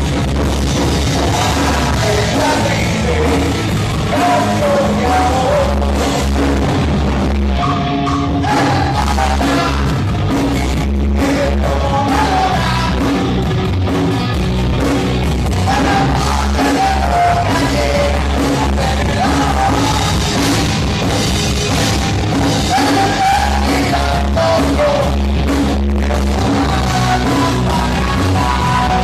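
Rock band playing live through a PA system: drums and heavy bass under a singing voice, loud and continuous.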